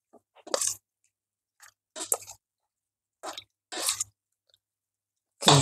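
A metal spoon stirring and turning chunks of raw beef in a wet marinade in a stainless steel bowl: a series of short scraping, squelching strokes with pauses between them, the loudest near the end.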